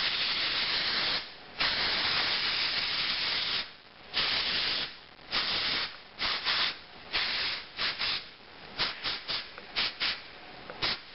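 Virtual Hair aerosol hair-thickening spray hissing onto the scalp: two long sprays of about two seconds each, then a run of a dozen or so short bursts that grow briefer and closer together toward the end.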